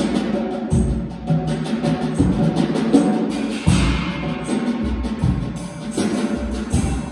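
Live dance-class accompaniment of drums and piano: repeated low drum strokes with sustained pitched notes over them.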